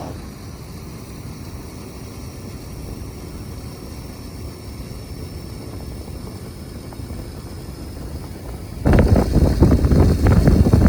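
Rushing wind and cable noise on a zipline ride: a steady low rumble that suddenly turns into loud, gusty buffeting on the microphone about nine seconds in.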